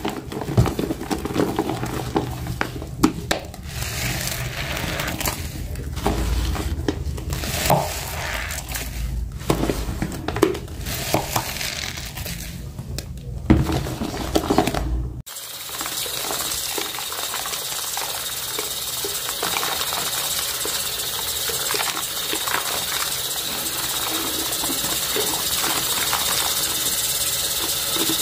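Gloved hand and sponge scrubbing a thick paste of Comet and Ajax powdered cleanser in a basin, with irregular wet scraping and squishing strokes. About halfway through it changes abruptly to a tap running steadily into the sudsy basin, a constant hiss.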